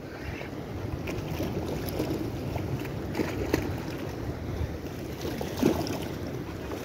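Sea swell washing and splashing against shoreline rocks, with wind buffeting the microphone and a few short knocks and splashes.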